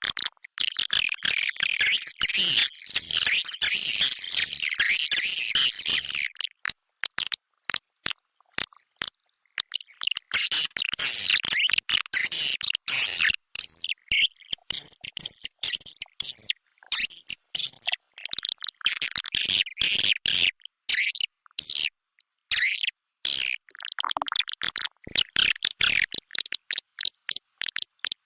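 Edible-nest swiftlet twittering played as a swiftlet-house lure call, the kind meant to be switched on in the mating season: dense, high, rapid chirps, chopped by many abrupt cuts and short gaps. A thin steady high tone sounds for a few seconds about a quarter of the way in.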